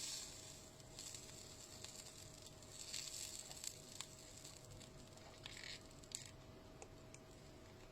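Faint handling sounds during work on a lithium battery pack's wiring: soft rustles and a few small clicks over a faint steady hum.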